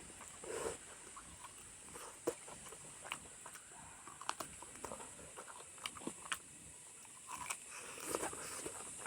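A person eating pork up close: chewing and biting with scattered sharp clicks and wet smacks, fairly quiet.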